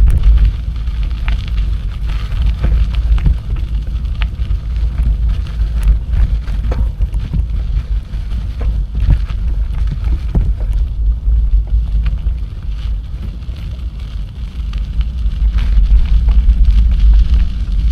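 Wind buffeting the microphone of a camera riding along on a moving bicycle: a steady low rumble that grows louder near the end. Scattered ticks and crackles come from the tyres on the path and the bike's rattles.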